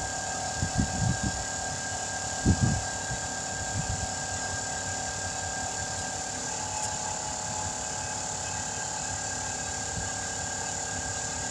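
A motor running at a steady drone, with a few low thumps about a second in and again at about two and a half seconds.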